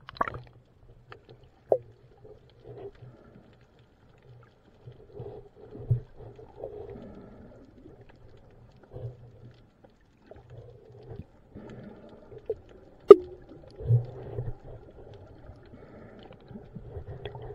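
Muffled underwater sound picked up by an action camera inside its waterproof housing: low rumbling water movement with irregular dull bursts. There is a burst right at the start as the camera goes under the surface, and a sharp knock on the housing about thirteen seconds in, followed by a dull thud.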